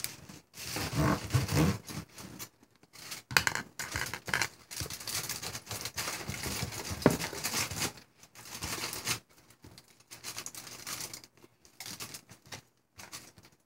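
Irregular scraping and rustling from eating, with food and utensils handled close to the microphone. A sharp knock comes about seven seconds in, and the sounds grow sparser and quieter after that.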